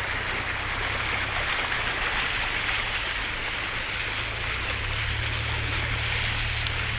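Floodwater from an overflowing creek rushing across a road, a steady loud rush of water, with a vehicle's engine running low underneath.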